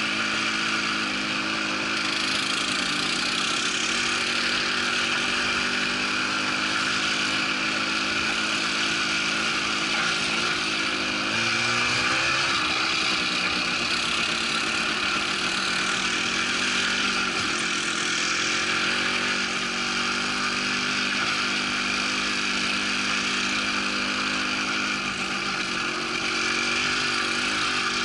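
Quad bike engine running steadily while riding along a rough track, its note wavering briefly around the middle, over a constant rushing noise of wind and tyres.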